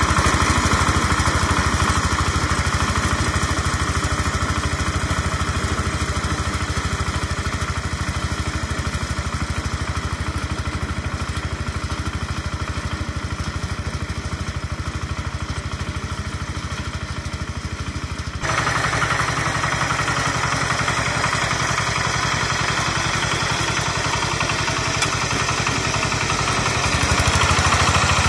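Kentavr MB 1010DE-6 walk-behind tractor's single-cylinder diesel engine running steadily under load while its rotary tiller works through wet soil. It grows fainter as it moves away, then is abruptly louder and nearer about two-thirds of the way through.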